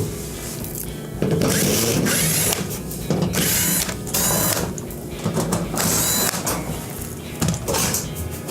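Sheet-metal screws being backed out of an oven's back cover with a 1/4-inch nut driver, in several separate runs of about a second each.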